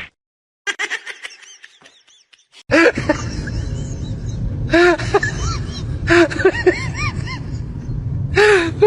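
An animal's short squeaky calls, each rising and falling in pitch, repeated about twice a second over a steady rumbling background noise that starts about three seconds in.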